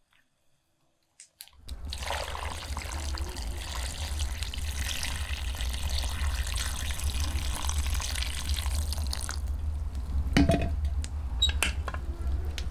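Water poured from above into a cast-iron pot of stuffed bell peppers, splashing steadily from about two seconds in until about three-quarters of the way through. Then a few sharp knocks as the pot's wire bail handle is taken up.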